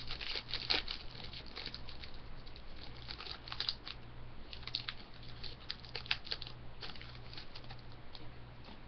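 Foil wrapper of a hockey card pack crinkling and tearing as it is opened by hand: a run of sharp crackles, thick at first, then sparser and fading near the end.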